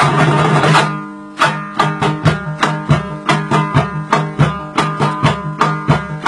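Instrumental break in a folk song: a plucked string instrument plays a rhythmic figure with percussion. A fuller passage drops away about a second in, and a sparser plucked line follows with a strong stroke about three times a second.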